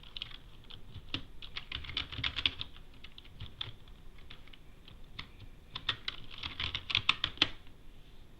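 Typing on a computer keyboard: runs of quick keystrokes in two busier flurries, with sparser taps between, stopping shortly before the end.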